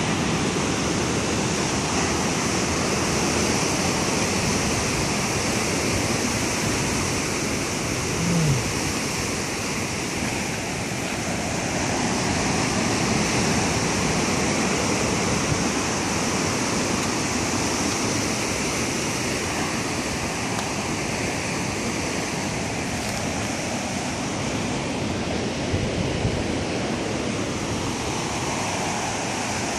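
Ocean surf breaking and washing up a pebbly shore: a steady rush that slowly swells and eases.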